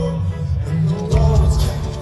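Live band music heard from the crowd in a concert hall, with strong sustained bass and a drum hit about a second in.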